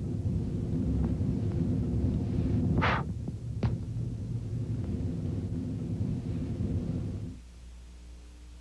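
Low, throbbing rumble of a commercial's sound effects. There is a short hiss about three seconds in and a sharp click just after. The rumble cuts off about seven seconds in, leaving a faint low hum.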